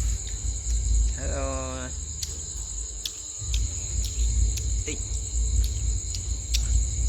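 Steady high-pitched insect chirping, likely crickets, over a pulsing low rumble. About a second in, a short pitched vocal sound lasting under a second.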